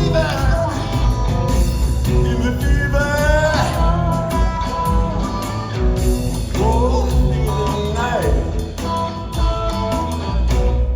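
Live rock trio of drums, bass and electric guitar playing, with melodic lines bending up and down over a heavy low end, heard through a phone's microphone.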